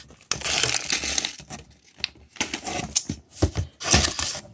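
Crinkling and rustling of a plastic snack pouch and wrappers being handled in a cardboard box, with irregular crackles and sharp taps throughout.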